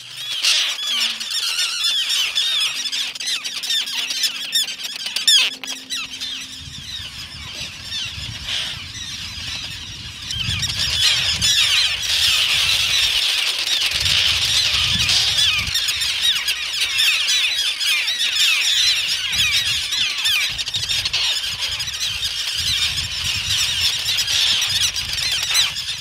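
A colony of common terns calling nonstop, many harsh overlapping cries, growing louder and denser about ten seconds in, over a low rumble.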